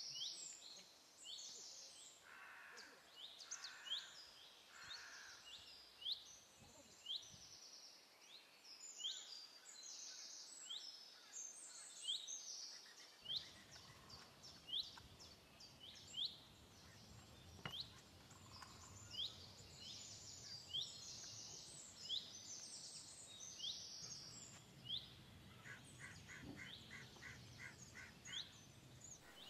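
Birds chirping in the background: short, high, sharp calls repeating one to two times a second, with a quick run of lower, evenly spaced notes near the end.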